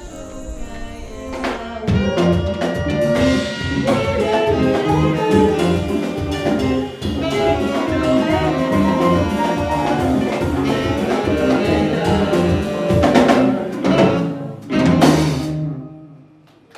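Band music with drums and many instruments playing together. The full ensemble comes in with a steady beat about two seconds in, hits a few loud accents near the end, then stops.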